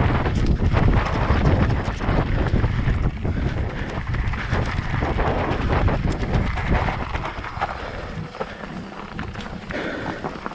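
Wind rumbling on the microphone of a rider on an electric mountain bike, mixed with scattered knocks from the ride. It eases off over the last few seconds.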